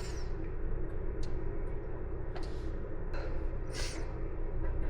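A few light clicks from parts of a bicycle disc brake caliper being handled, over a steady low hum, with a short sharp breath about four seconds in.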